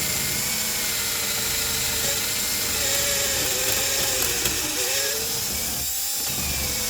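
Ridgid power drill running steadily as it bores into the metal lock cylinder of a jammed ignition switch. The motor's pitch wavers as the bit loads up, with a brief dip in speed near the end.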